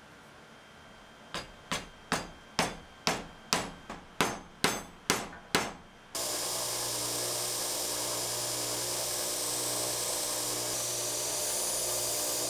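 About eleven sharp hammer blows, roughly two a second, on the end of a wooden handle standing on a steel workbench, seating it into its copper ferrule. About six seconds in this gives way abruptly to the steady running of a belt grinder as the wooden handle is held against its belt.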